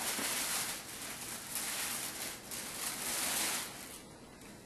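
Tissue paper rustling and crinkling as it is handled and pulled out of a gift, dying down near the end.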